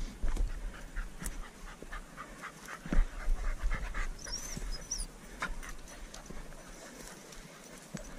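A hunting dog panting in quick short breaths close by, with scattered knocks of footsteps on stone. A short high chirp sounds about halfway through.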